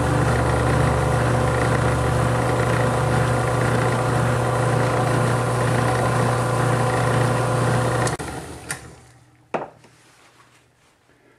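Lapidary trim saw's electric motor running with a steady hum. It is switched off about eight seconds in and winds down, with two sharp clicks as it fades.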